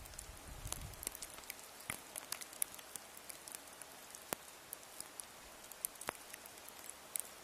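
Scattered, irregular sharp ticks and taps over a faint steady hiss, with a brief low rumble near the start.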